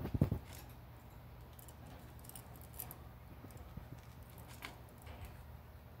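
A low bump just after the start, then faint scattered clicks and light taps: a cockatiel shifting on its plastic perch against the wire bars of its cage.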